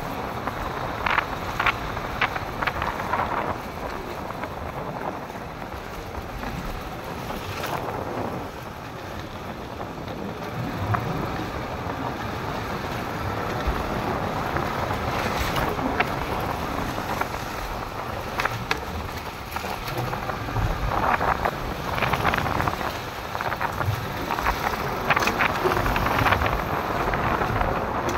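Wind buffeting a phone's microphone while walking outdoors, a steady rumbling rush over street noise, with scattered short taps and clicks.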